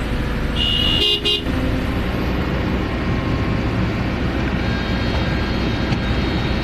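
A vehicle horn honks once, lasting under a second, about half a second in, over the steady running of a heavy vehicle's engine.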